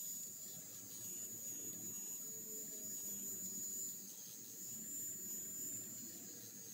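Finishing Touch Flawless facial hair remover's small motor running with a quiet, steady buzz and a constant high whine as its rotating head is passed over the skin.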